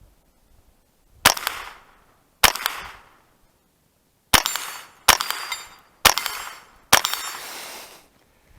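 Ruger 10/22 Takedown .22 LR rifle firing six shots at an uneven pace: two spaced about a second apart, then four in quicker succession. A thin ringing hangs after the last four, steel plates ringing from hits.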